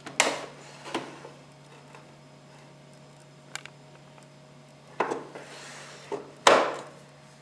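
Handling clatter: about half a dozen sharp knocks and clicks at uneven intervals, with a short rubbing scrape about five seconds in and the loudest knock near the end, over a steady low hum.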